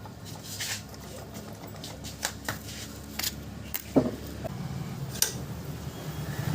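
Scattered light metallic clicks and taps of hand tools on a motorcycle engine as the magneto rotor is fitted and tightened, with one sharper knock about four seconds in.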